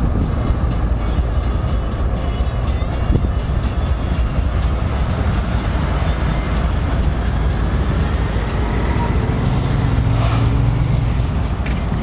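Freight train passing on an elevated bridge: a steady low rumble as the CSX diesel locomotive goes by, followed by the tank cars rolling. A stronger low hum rises briefly near the end.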